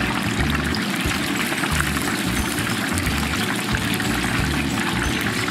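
Battered chicken pieces deep-frying in a large pot of hot oil: a steady crackling sizzle of bubbling oil.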